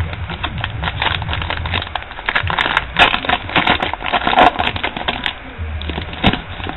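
Foil wrapper of a trading-card pack crinkling and tearing as it is ripped open by hand: a rapid, irregular run of crackles.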